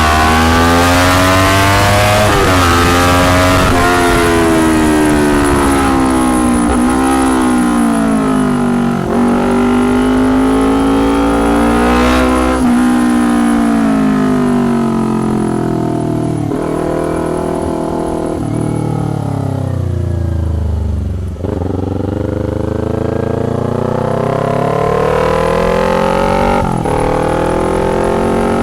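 2019 Kawasaki Ninja 250's parallel-twin engine through a loud, tinny custom exhaust, under way. The engine rises in pitch as it accelerates, drops sharply at each gear change, and slows in long falling stretches when the rider backs off.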